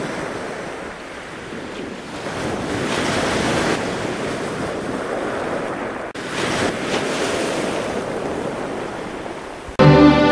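A steady rushing noise that swells and fades, with a brief break about six seconds in; music with sustained pitched notes begins just before the end.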